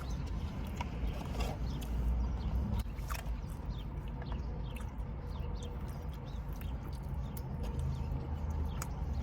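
Close-miked chewing and mouth sounds of a person eating, with many small wet clicks and smacks scattered through, over a steady low hum.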